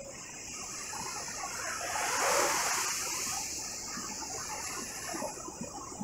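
Mediterranean surf at night: a wave breaking and washing up the shore, swelling to its loudest about two seconds in and then draining away with a fizzing wash.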